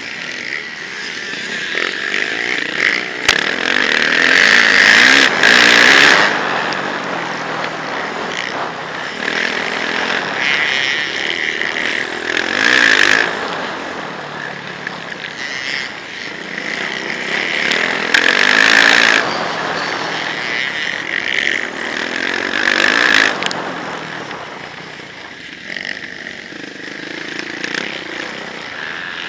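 Yamaha motocross bike's engine at race pace, heard from a helmet-mounted camera: it revs up and falls back with the throttle, with four loud surges of hard acceleration and a quieter stretch near the end.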